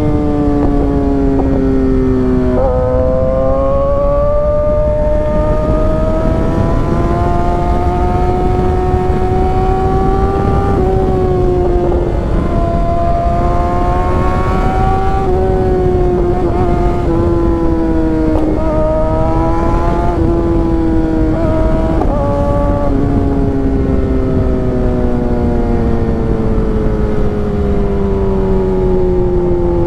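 Kawasaki ZX-6R inline-four motorcycle engine running on the road, its pitch slowly rising and falling with the throttle and stepping sharply up or down a few times. Over the last several seconds the pitch falls steadily as the engine winds down, with a steady rush of wind and road noise underneath.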